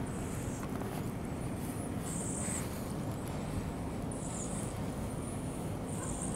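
Outdoor background noise: a steady low rumble of wind or distant traffic, with short high-pitched chirps about every two seconds, around two, four and six seconds in.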